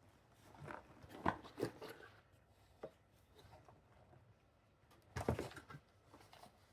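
Plastic packaging crinkling and rustling as it is handled and opened. The crinkling comes in two bursts, one about a second in and one about five seconds in, with a single sharp click between them.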